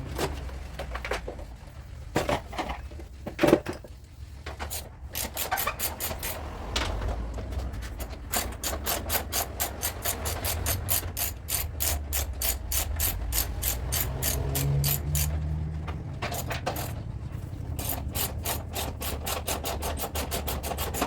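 Rapid, evenly spaced clicking of a hand tool at work, scattered at first and settling into a steady run of about five clicks a second, over a low steady hum.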